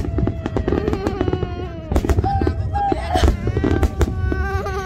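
Aerial fireworks going off in a quick string of sharp bangs and crackles, with long drawn-out crowd voices held over them.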